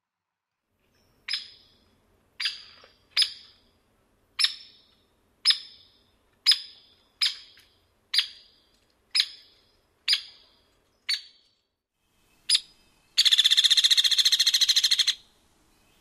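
Hairy woodpecker giving a string of single, sharp, high "peek" call notes, about one a second, then a rapid rattle call lasting about two seconds near the end.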